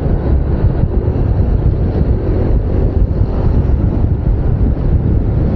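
Loud wind buffeting on a lavalier microphone used without a wind shield while riding a Yamaha NMAX 155 scooter. The scooter's engine and road noise sit underneath as a steady rumble.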